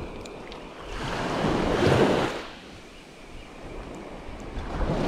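Small waves breaking and washing up a sandy beach: one surge swells and falls away about two seconds in, and another builds near the end. Wind buffets the microphone throughout.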